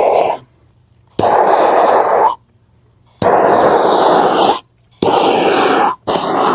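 Blowtorch flame blowing in a steady rush while the wood of a carving is scorched dark. It cuts out and starts again several times, with a sharp click at each restart.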